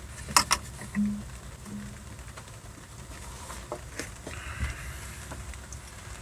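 Scattered faint clicks and knocks of hands handling plumbing fittings and hose, with two short low hums about one and two seconds in.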